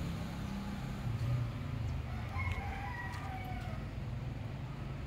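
A rooster crowing once, faintly, starting about two seconds in and lasting over a second, over a steady low hum.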